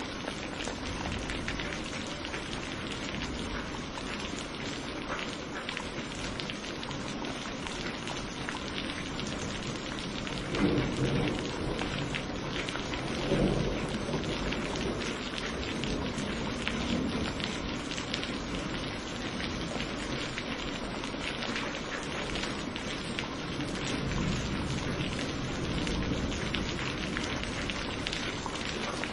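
Steady heavy rain hissing and pattering, with two rolls of thunder about ten and thirteen seconds in, the second following closely on the first.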